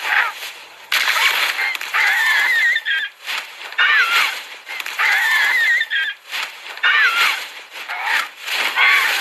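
Repeated animal cries, about seven in a row, each with a wavering, sliding pitch and a rough edge, coming roughly every second.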